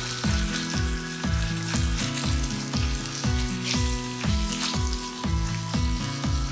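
Food frying in a pan with a steady crackling sizzle, under background music with a steady beat.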